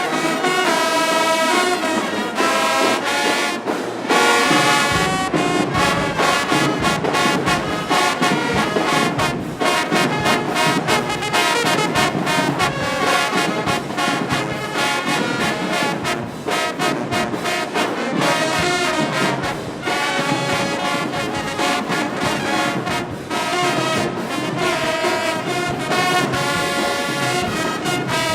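A marching band playing loudly, its brass section (trombones and trumpets) playing over a drumline's steady, dense hits. The low brass and drums fill in fuller about five seconds in.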